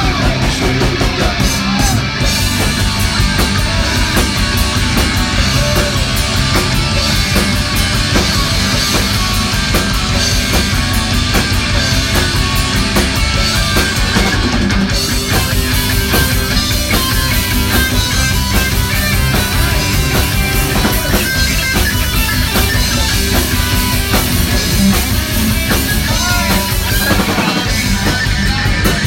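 Live rock band playing an instrumental passage: distorted electric guitars over bass and a steady drum-kit beat.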